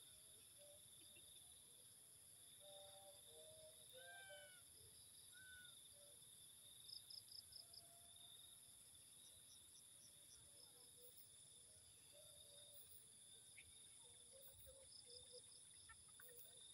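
Faint, steady high-pitched insect chorus, with a short rapid ticking trill about seven seconds in and again near the end, and a few faint short chirps.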